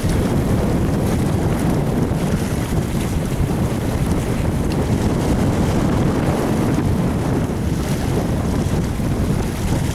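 Strong wind blowing across the camera microphone: a steady, heavy rumble of wind noise that does not let up.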